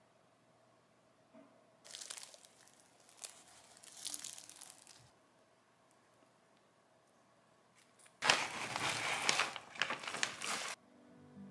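Flaky, crisp croissant crust crackling and rustling as hands tear the pastry apart, in two spells, the second louder.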